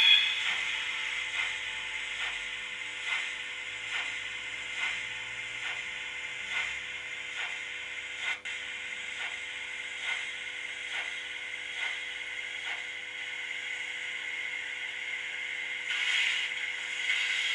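Model railway mechanism running, with a regular click about once a second over a steady hum and hiss, getting a little louder near the end.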